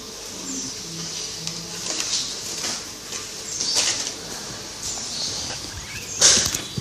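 Thin plastic bag crinkling and rustling in irregular bursts as a cat with its head stuck inside it moves about.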